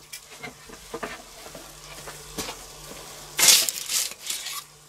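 Bacon-wrapped sausages sizzling on a pizza stone in a charcoal kettle grill, with small scattered pops. About three and a half seconds in, a louder rustling scrape as grill tongs take hold of them on their baking paper.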